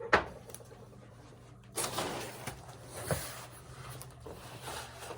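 Handling of a shipping package: a sharp knock just after the start, then scraping and rustling as the box is moved and worked at.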